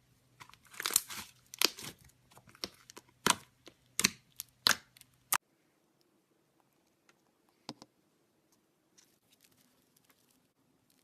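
Slime being handled up close: a quick run of sharp crackles and pops for about five seconds, then it cuts off, leaving only a few faint soft clicks.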